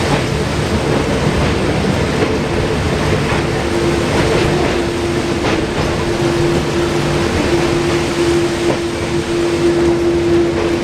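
Train running on the rails: a steady rumble with a held tone that grows stronger partway through, and scattered sharp clicks from the wheels.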